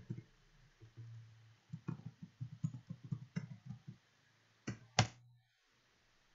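Computer keyboard typing: a quick run of keystrokes for about two seconds, then two sharper key presses about a second later, the last one the loudest, as the typed address is entered. A faint low hum comes and goes underneath.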